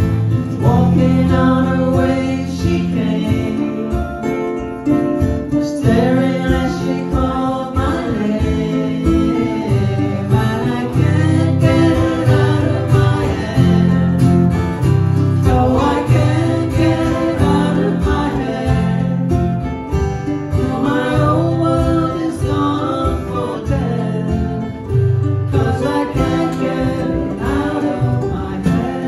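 Acoustic guitar and ukulele strummed together as a live duo, with singing over the chords.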